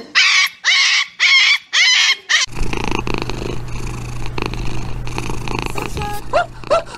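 A husky puppy gives a quick run of about six short, high yelps. About two and a half seconds in, this gives way to a kitten purring steadily.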